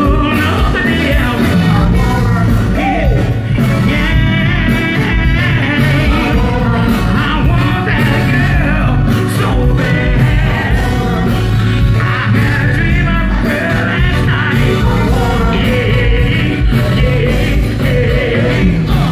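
Live band music played loud through a PA system, with a steady bass line and a vocalist singing over it.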